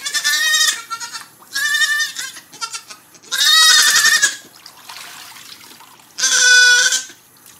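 A young goat bleating four times, loud calls under a second long with the third the longest.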